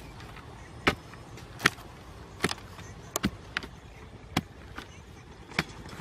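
Green bamboo pole jabbed into hard, dry soil to dig out a burrow: about eight sharp thuds at an irregular pace of roughly one a second, two of them close together near the middle.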